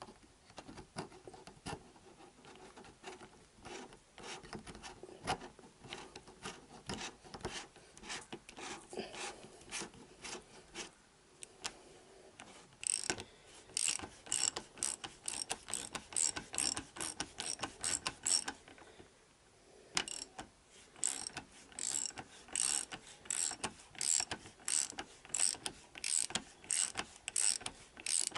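Hand ratchet clicking as it is swung back and forth on a socket, tightening a motorcycle fork fitting. Softer and quicker at first, then louder, evenly spaced clicks from about halfway, with a brief pause.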